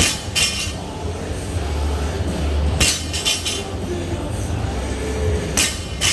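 Loaded barbell with bumper plates dropped on rubber gym flooring, bouncing with a clank and a metallic clink of plates and collars on the sleeves, about half a second apart. A cluster of clanks follows near the middle, and more near the end as the bar is gripped and pulled off the floor again, all over a steady low hum.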